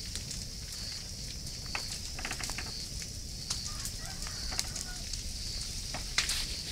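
Bonfire of dry brush and old branches crackling, with irregular sharp pops and snaps over a steady high hiss. A few faint short calls are heard in the background around the middle.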